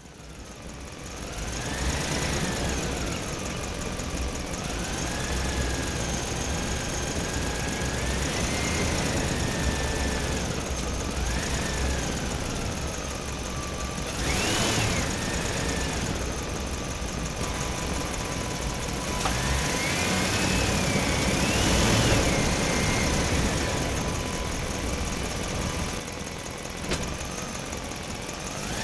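Electric motors of a radio-controlled excavator model whining, the pitch rising and falling over and over as the motors speed up and slow down, over a steady low rumble.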